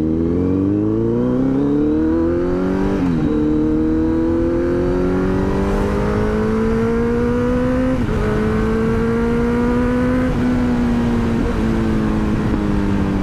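Kawasaki Z900's inline-four engine, fitted with a full-system aftermarket exhaust, revving under hard acceleration. The revs climb, drop at an upshift about three seconds in, climb again and drop at a second upshift about eight seconds in. Near the end they ease down slowly as the throttle is rolled back.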